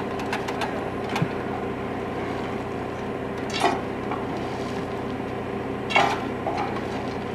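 Steady hum of a railway maintenance motor car's engine running, with three sharp metallic clanks of hand tools on the track: about a second in, midway, and a louder one near the end.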